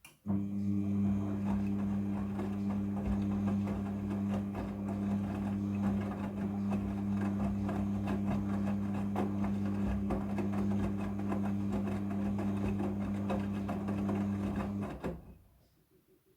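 Front-loading washing machine running: a steady motor hum with many small clicks and rattles. It fades out into near silence about a second and a half before the end.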